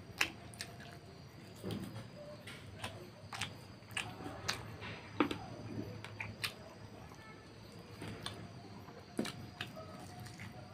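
Close-up eating sounds: a man chewing a mouthful of rice and pork curry, with wet mouth smacks and short clicks at irregular intervals, and his fingers squishing rice and curry together as he mixes them.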